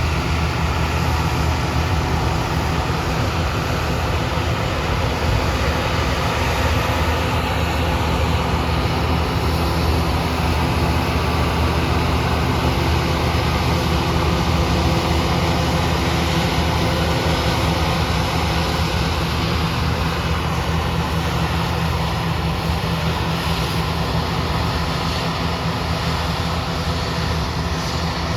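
Heavy farm machinery engine running steadily at a constant speed: a continuous low hum with a wash of mechanical noise over it.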